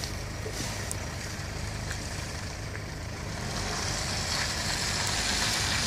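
Mercedes-Benz SUV driving slowly along a muddy track: a steady low engine hum with tyre noise, growing a little louder from about halfway through.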